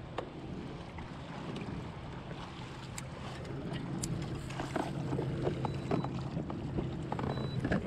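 Electric trolling motor on a fishing kayak running with a steady low hum that gets louder about halfway through, over water splashing against the hull and wind on the microphone. A few sharp knocks of gear being handled sound in the second half.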